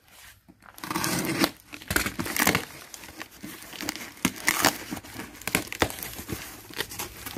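Packing tape on a cardboard box being cut and ripped open, then the cardboard flaps scraped and pulled back in a run of rasping, crinkling strokes, the loudest about a second in.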